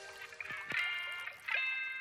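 Background music: plucked-sounding notes that ring and fade, one struck about two thirds of a second in and another about a second and a half in.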